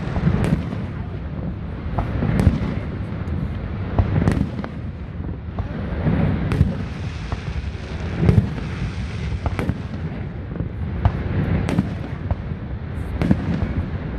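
Aerial fireworks shells bursting, a sharp bang every second or two, each trailed by a low rumble.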